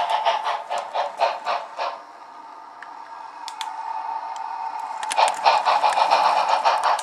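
Model locomotive running along the layout's track: a steady motor whine with rattling clicks from the wheels on the rails. It fades about two seconds in and grows louder again about five seconds in.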